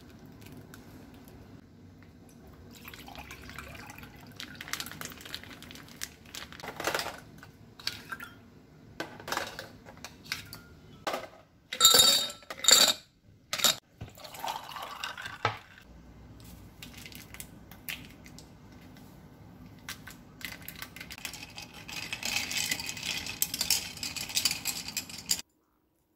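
Small kitchen clicks and taps, then ice cubes clattering into a tall glass with several loud clinks about halfway through. A clear liquid is then poured over the ice, and a steady hiss builds near the end and cuts off suddenly.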